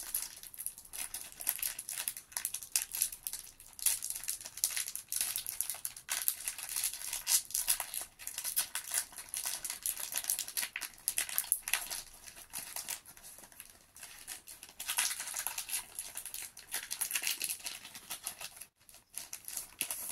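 Shiny plastic trading-card booster-pack wrapper crinkling and tearing as it is worked open by hand, a dense run of sharp crackles that dies away near the end.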